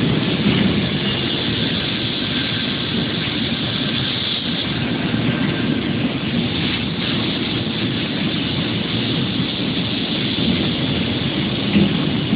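Robot-arm fiber laser cutter cutting sheet metal: a steady rushing noise from the cutting head and the machinery around it, with no breaks.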